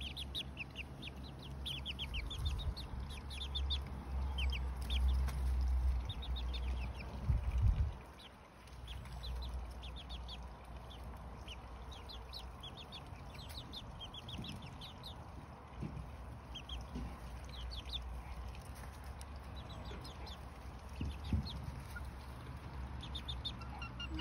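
Two-month-old Lemon Millefleur Sablepoot bantam chicks peeping: short high cheeps in quick runs, on and off throughout. Under them is a low rumble, heaviest in the first eight seconds.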